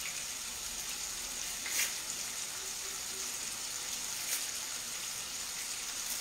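Sausage pieces sizzling steadily in a frying pan, with two sharp knife taps on a wooden cutting board, one about two seconds in and another past four seconds.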